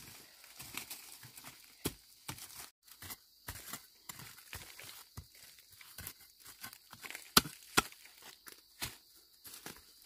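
Plants being handled and picked: irregular rustling and crinkling of leaves with scattered sharp snaps, the two loudest coming close together about three-quarters of the way through.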